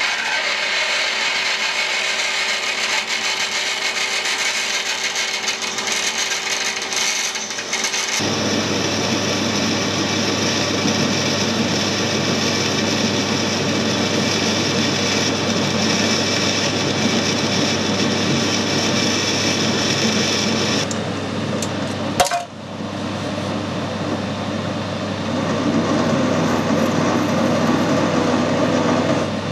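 Metal lathe running while it cuts hard steel, with steady machine noise throughout. First a solid carbide drill boring through the bar, then after an abrupt change about eight seconds in, a lower run with a steady hum as a tool works at the bore. A sharp click about two-thirds through, then a countersink cutting a chamfer into the hole near the end.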